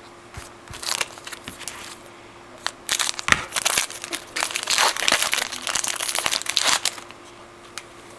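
Trading-card pack wrapper being torn open and crumpled. A few light rustles come first, then a run of dense crinkling from about three seconds in until near the end.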